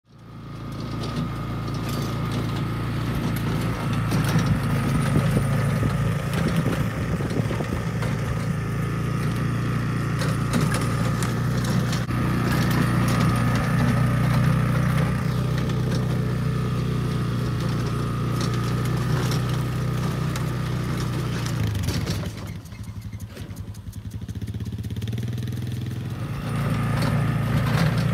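An engine running steadily while it pulls a wheeled roping-dummy sled. It eases off for a few seconds past the middle and picks up again near the end.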